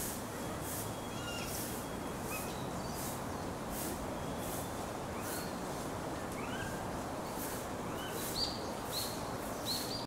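Steady outdoor background hiss with scattered short, arching high-pitched animal calls, several in quick succession near the end. A faint high hiss pulses regularly, roughly three times every two seconds.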